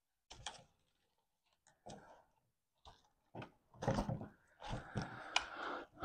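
Bundled plastic-insulated wires of a Toyota Prius wiring harness being handled and pulled apart by hand: scattered light clicks and crackly rustling, sparse at first and busier in the second half.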